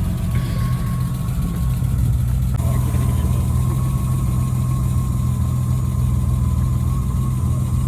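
Car engine idling steadily just after it has started, with a thin steady whine above the idle. The car has just fired up after its fuel pump was swapped.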